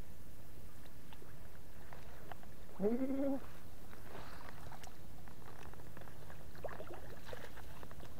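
A single short animal call, about three seconds in, rising in pitch and then held for about half a second, over a steady background hiss.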